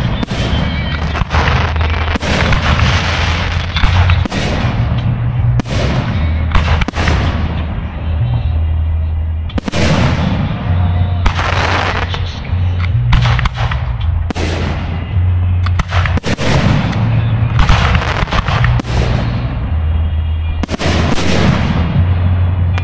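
Fireworks display: aerial shells bursting one after another in a dense barrage, sharp booms with crackling between them and barely a pause.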